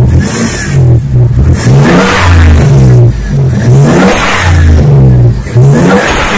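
Turbocharged engine revved up and released over and over, about every two seconds, each rev ending in a loud hiss from the blow-off valve venting boost.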